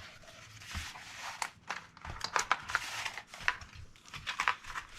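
Cardboard armour bracer and tape being handled: irregular crinkling and rustling with many small clicks and taps.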